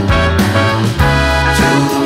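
Background music: an upbeat song with a steady beat.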